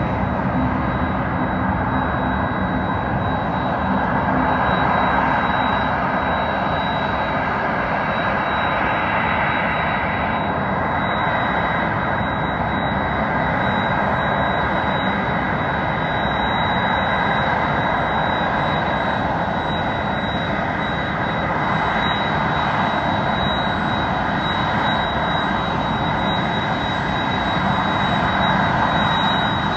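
Jet airliner engines running steadily, a continuous loud rumble with a thin high whine held on one pitch.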